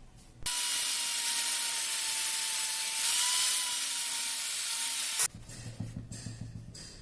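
A power tool running under load for about five seconds: a steady high whine over a loud hiss, starting and stopping abruptly.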